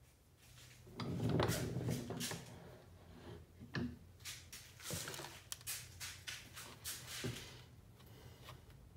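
Small wooden pieces handled and set down on a workbench: scattered knocks and clatter, with a louder rustling stretch about a second in. Near the end a pencil scratches faintly, tracing on a wood block.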